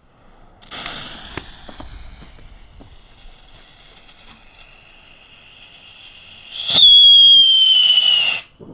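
Consumer firework going off: a hiss with a few crackles for about five seconds, then a loud, shrill whistle that falls slowly in pitch for under two seconds and cuts off suddenly.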